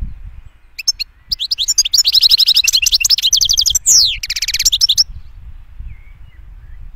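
European goldfinch singing: about four seconds of fast twittering notes, starting about a second in, with a falling sweeping note near the end.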